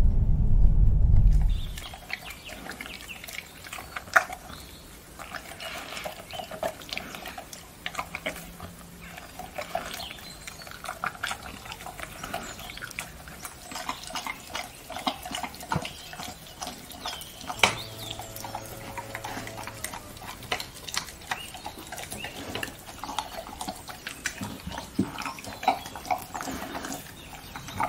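A dog eating yogurt-coated strawberries and blueberries from a bowl, close up: wet smacking, lapping and chewing with many small clicks. It starts about a second and a half in, after a low car-cabin rumble cuts off.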